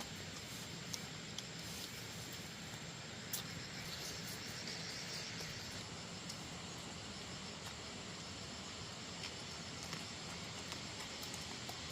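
Steady outdoor background hiss with faint insect chirring, strongest around the middle, and a few small scattered clicks.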